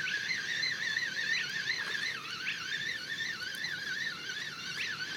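Spotted crake calling: short upward-sweeping whistles repeated a few times, over a continuous wavering high trill.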